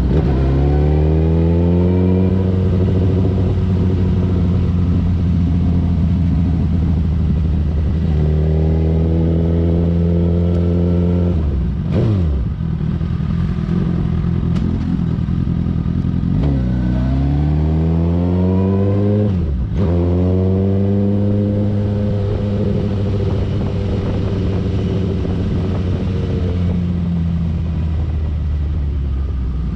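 Suzuki GSX-R1000 K8's inline-four engine running under way, its note rising and falling with the throttle. The pitch climbs as it pulls, drops sharply about twelve seconds in, climbs again, dips briefly near twenty seconds in, then holds steady.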